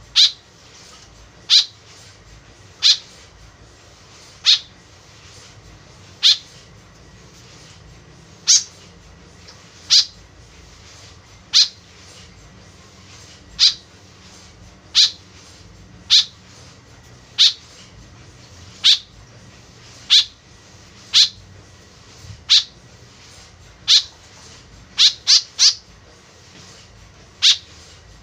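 White-breasted woodswallow (kekep babi) giving short, sharp calls, one every second or two, with a quick run of three near the end.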